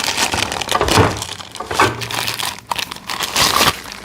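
Plastic crinkling and rustling with irregular clicks and knocks as heavy steel 1-inch drive impact sockets are worked out of their holders in a plastic carrying case.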